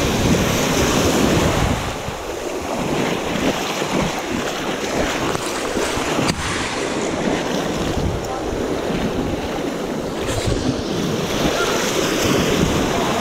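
Sea surf washing and breaking over shore rocks, with wind buffeting the microphone in an irregular low rumble.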